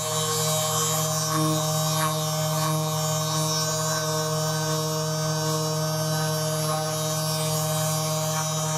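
A steady low hum with a ladder of even overtones, unchanging in pitch and level throughout.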